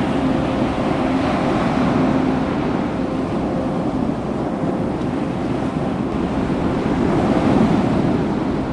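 Ocean surf washing onto a beach: a steady rushing noise, with wind on the microphone.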